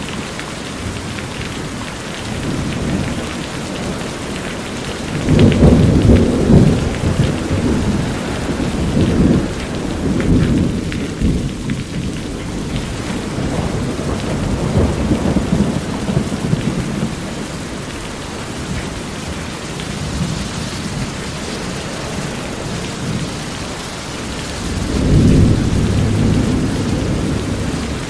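Steady rain falling on a house roof, with thunder rumbling low several times, loudest about five seconds in and again near the end.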